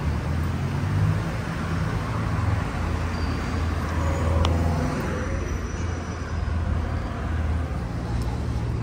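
City street traffic: motor vehicles running on the road, a steady low engine sound under a wash of traffic noise, with one brief click about halfway through.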